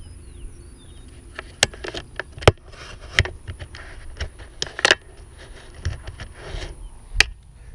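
Irregular sharp clicks and knocks with short bursts of rustling, close to the microphone: a skydiver handling a parachute rig and its hardware after landing.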